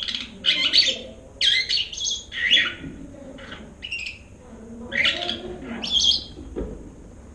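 A series of about ten short, high-pitched squeaky chirps and squawks from a small animal, in quick groups over the first six seconds, then they stop.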